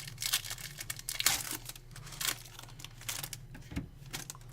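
A 2017 Panini Chronicles baseball card pack's wrapper being torn open and crinkled, a quick run of sharp crackles.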